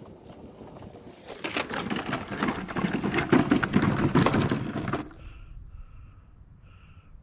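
Push spreader rattling and clattering as it is wheeled down the lawn and over the concrete curb, a dense run of knocks that stops suddenly about five seconds in.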